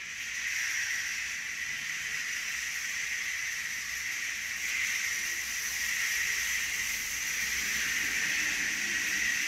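Homemade rain stick tipped so its fill runs down inside, giving a long, steady rain-like hiss.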